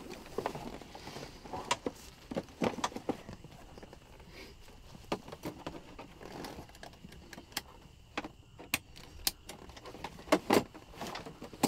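Metal seat-belt buckles and strap hardware clicking and jangling as webbing straps are fastened to secure a rescue litter on a helicopter's rear bench seat. An irregular scatter of sharp clicks, loudest in a pair about ten seconds in.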